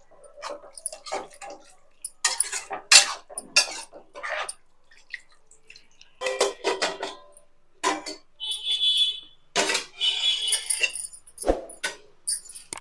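Steel spoon scraping and clinking against a kadai as a watery curry is stirred, with some metallic ringing. Near the end a steel lid is set on the pan with a dull clank.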